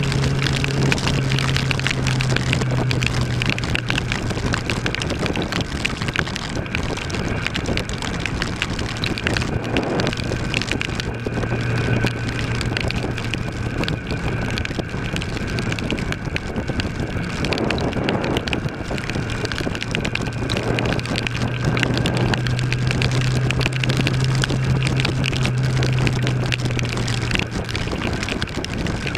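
Kawasaki ER-6 parallel-twin motorcycle engine running at a steady road speed, its note fading and returning a few times, under heavy wind rush and rain noise.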